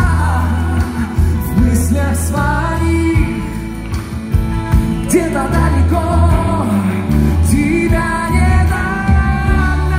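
A male singer sings a song live into a microphone over an amplified band accompaniment.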